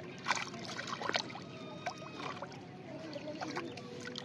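Water splashing and sloshing as a hand gropes for fish inside a bamboo polo trap standing in shallow water, with sharper splashes about a third of a second and a second in.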